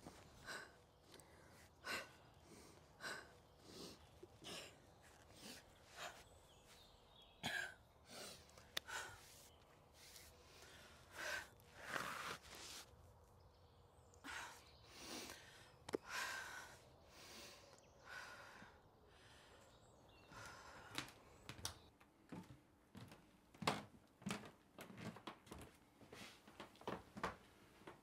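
A young woman's heavy, uneven breathing: gasps and sighing breaths every second or so, with a few sharp knocks in between.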